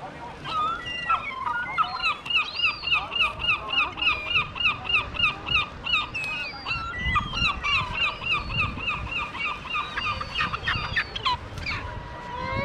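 Gulls calling in long runs of rapid, harsh repeated notes, about four a second, with a brief break about six seconds in.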